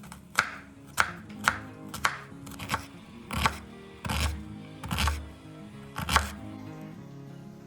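Kitchen knife chopping on a cutting board, about ten irregular strokes that stop a little after six seconds, over background music.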